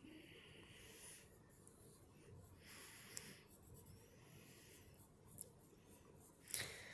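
Faint heavy breathing close to the microphone, a few slow breaths about every two seconds, with faint drawing strokes under it and one sharp click near the end.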